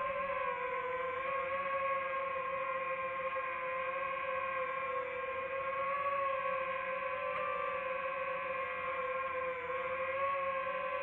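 Ambient background music: a sustained, droning pad tone with overtones, wavering slightly in pitch.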